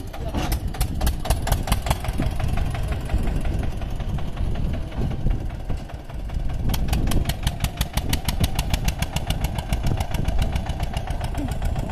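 Eicher 241 tractor's single-cylinder diesel engine running under heavy load, hauling a loaded trailer up a sandy slope, each firing stroke heard as a distinct beat. About two-thirds of the way in the beats grow stronger and steadier, about eight a second, as the engine works hard.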